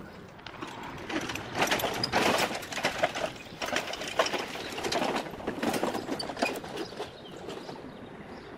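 A loaded steel-mesh utility wagon rolled over bumpy grass, its metal grill parts and stainless steel tabletop rattling and clanking in quick irregular knocks. The rattle is loudest through the middle and eases near the end.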